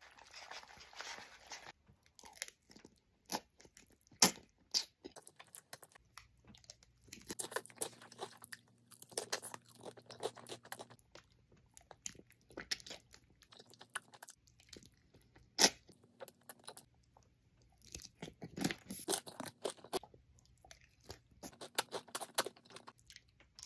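A person eating Buldak fire noodles mixed with blue Takis chips: wet slurping and chewing with crunchy bites, coming as many short, irregular mouth sounds.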